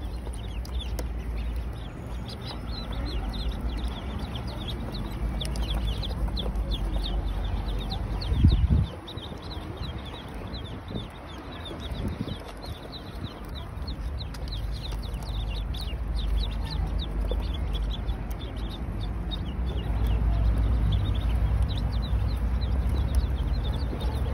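A large group of ducklings peeping continuously, many short high calls overlapping, over a low rumble. A brief low thump comes about eight seconds in.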